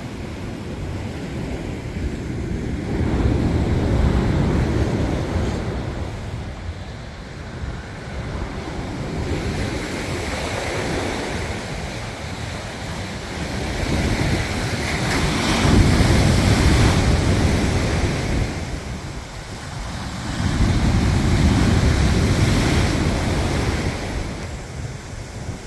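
Sea waves breaking and washing on the beach, swelling and easing, with three loudest surges. Strong wind rumbles on the microphone throughout.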